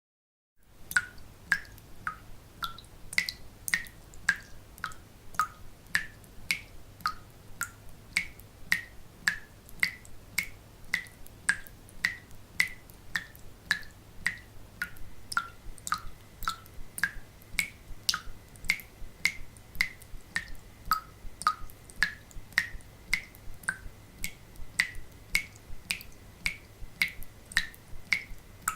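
Water dripping fast into a sink, about three drops a second, each drop a short plink whose pitch shifts a little from drop to drop.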